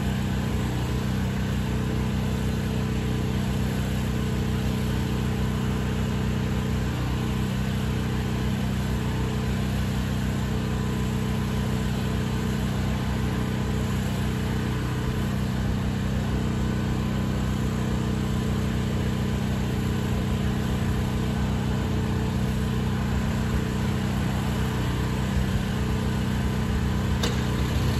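Pressure washer engine running steadily with an even drone, with a short tick near the end.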